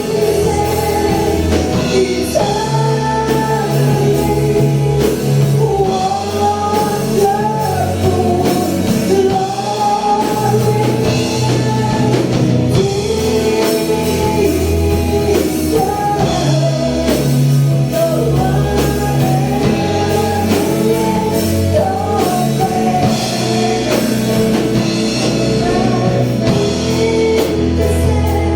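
Worship song: a singer over a band with guitar, bass and drum kit.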